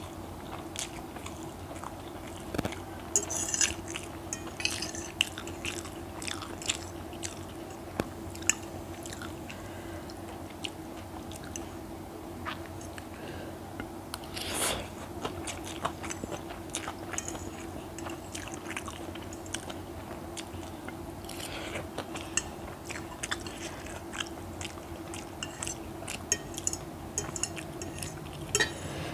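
Close-up chewing and slurping of a mouthful of Maggi instant noodles: wet, irregular mouth clicks and smacks, with a longer slurp about halfway through. Now and then a metal fork clicks on the plate.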